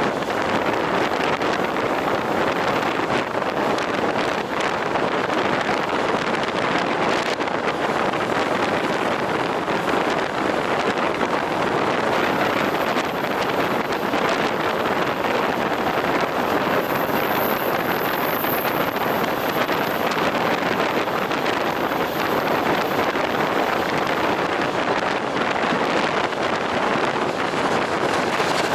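Steady running noise of a moving train's wheels on the rails, even and unbroken, with a faint knock or two.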